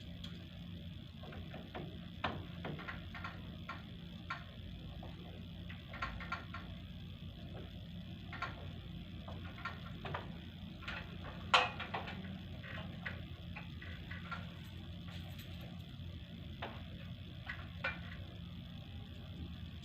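Air conditioner running with a steady hum, with scattered light clicks and ticks and one sharper click about halfway through.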